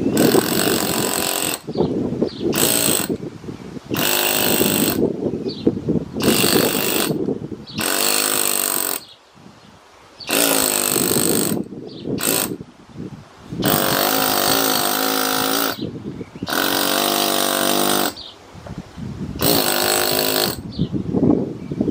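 Pneumatic chisel hammering into a greywacke river stone, carving a relief. It rattles in about ten bursts of one to two seconds each, with short pauses between them.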